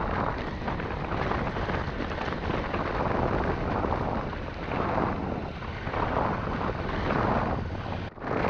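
Strong wind buffeting the microphone: a rumbling rush that swells and eases in gusts, with a brief break just after eight seconds in.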